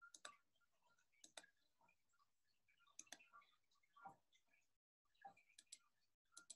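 Near silence, with a few faint, short clicks scattered through it.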